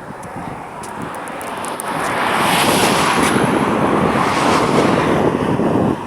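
A motor vehicle passing close by on the road: a rushing noise of engine and tyres that swells over about two seconds, stays loud, then drops away sharply near the end.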